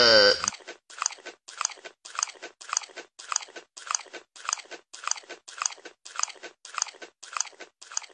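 A sheep's bleat trails off in the first half second. Then comes loud, crunchy chewing: an even run of bites about two a second that stops near the end.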